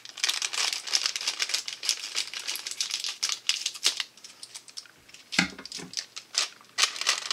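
Plastic snack bag crinkling as it is handled and cut open with scissors. A dull thump comes about five seconds in.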